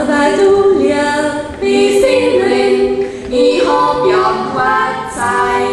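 Several young women's voices singing a Bavarian Jodler (yodel) in close harmony, in phrases of about a second and a half to two seconds, with the melody stepping between held notes.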